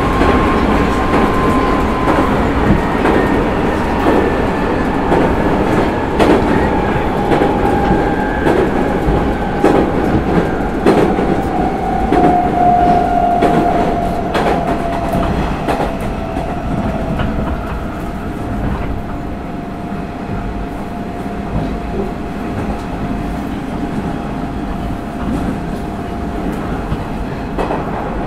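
Hanshin 9000 series electric train heard from inside the car while running: a motor whine falls steadily in pitch through the first half, then holds, over steady running rumble with irregular clicks from the wheels crossing rail joints.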